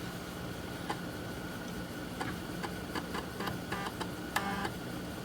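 3.5-inch floppy disk drive reading a newly inserted disk: the head stepper motor ticks and gives short buzzy runs of rapid steps over a steady low hum, as the drive seeks while checking the disk.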